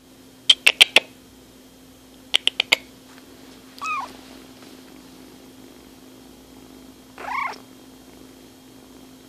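Ginger kitten giving two short mews, one about four seconds in and one about seven seconds in. Before them come two quick runs of four sharp clicks, which are the loudest sounds, over a steady low hum.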